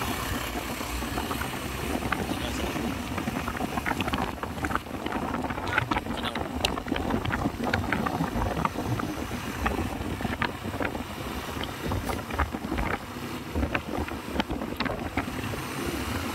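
Road traffic rumble with wind buffeting the microphone, broken by many short sharp clicks and knocks; no horn is sounding.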